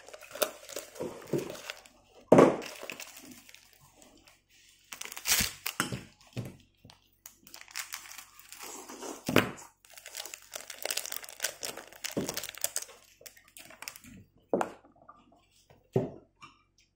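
Close-up eating sounds: rice noodles from a bowl of noodle soup slurped and chewed, with chopsticks and a spoon knocking against a ceramic bowl, in irregular bursts.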